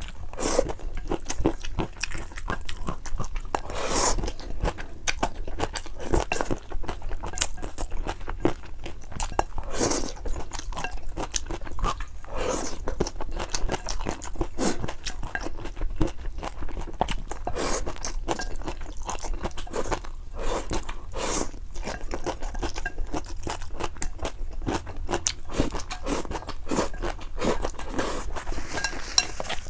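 Close-miked mouth sounds of a person eating spicy noodles: a continuous run of wet chewing, biting and crunching clicks, with a few louder crunches standing out.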